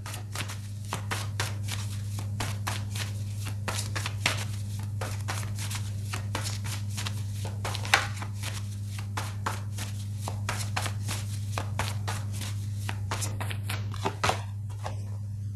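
A deck of tarot cards being shuffled by hand: a quick, irregular run of soft card clicks, several a second, with one sharper click about eight seconds in. A steady low electrical hum runs underneath.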